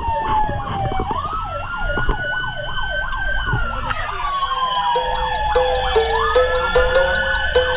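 Several fire truck sirens sounding at once: a slow wail that rises and falls over about five seconds, a fast yelp sweeping up and down about three times a second, and from about five seconds in a short low tone repeating about twice a second, over a low engine rumble.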